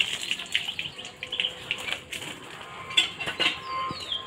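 Birds chirping and calling, with a few short clicks in between; near the end several quick chirps slide down in pitch.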